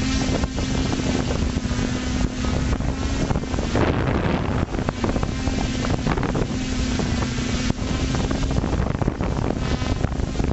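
FPV quadcopter's motors and propellers giving a steady hum that drops out briefly a few times, under heavy wind rush on the onboard camera's microphone.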